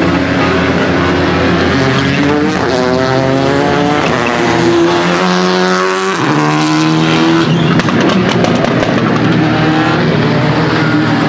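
Rally car engine revving hard on a circuit, its pitch climbing through the gears, dropping sharply about six seconds in and then climbing again.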